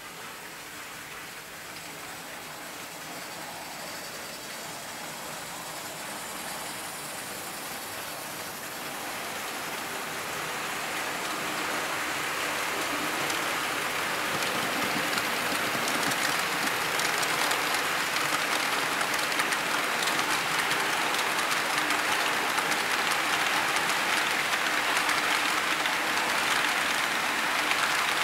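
Model freight train running along the layout's track, a dense, even rattle of wheels on rail that grows louder over roughly the first half as the train approaches, then stays steady.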